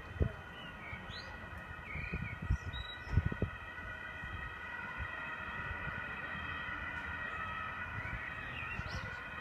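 Distant emergency-vehicle sirens sounding as a steady set of high tones. Several low thumps in the first few seconds, and a few short high chirps on top.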